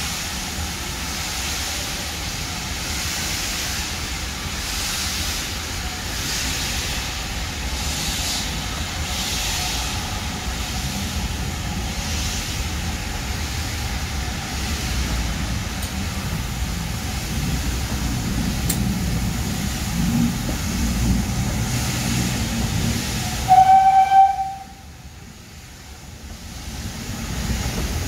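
GWR Manor class 4-6-0 steam locomotive pulling a train of carriages away from a station, heard from a carriage window: a steady run of rail and engine noise with soft exhaust beats every second or two and a rumble that builds as it gathers way. About three-quarters of the way through the locomotive's whistle gives one short blast, and the sound then drops away sharply.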